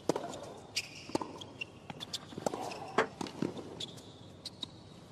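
Tennis rally on a hard court: sharp racket strikes and ball bounces about once a second, with the players' footwork between them, over a hushed crowd.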